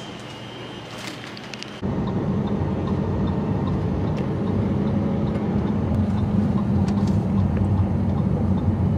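A quiet hum with a faint steady high tone, then, about two seconds in, an abrupt change to the steady low drone of a car's engine and tyres heard from inside the cabin while driving.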